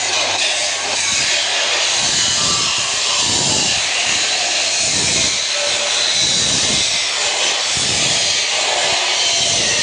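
Angle grinder running steadily as it cuts, a loud continuous hissing grind, with low rumbles coming and going about once a second.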